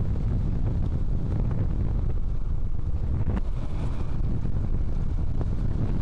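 Wind rushing and buffeting over the microphone of a rider on a moving bicycle: a steady low rumble, with a couple of light ticks partway through.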